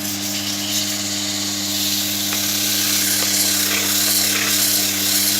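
100-grit sandpaper held against a softwood ball spinning on a wood lathe: a steady coarse hiss that grows louder a second or two in, over the constant hum of the lathe and dust fan.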